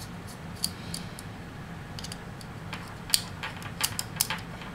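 A small hand tool clicking and tapping against the opened iPod Nano's metal frame and board: scattered sharp ticks, the loudest a little past three seconds in and several more close together near the end, over a faint steady low hum.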